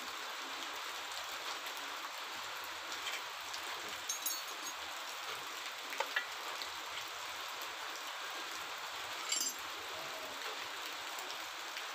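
Running water splashing steadily over a motorcycle's rear brake caliper held in the hand as it is rinsed, with a few light metallic clinks from the caliper and tools.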